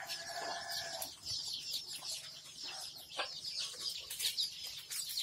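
A brood of young Kadaknath and desi chicks, about ten to twelve days old, peeping continuously: many short, high, falling chirps overlapping. A longer, lower held call fades out about a second in.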